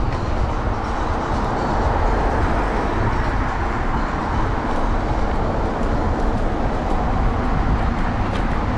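Steady rush of wind and road rumble while riding an electric scooter through city traffic, with wind on the microphone.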